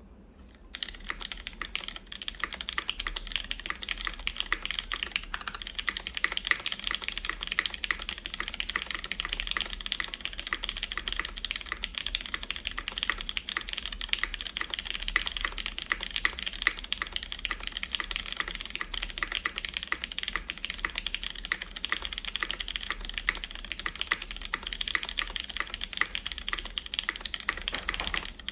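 Fast, continuous typing on a CannonKeys Blaine v2 SE mechanical keyboard in top-mount configuration: lubed Cherry MX Brown tactile switches on an aluminum plate under GMK keycaps. The typing starts about a second in.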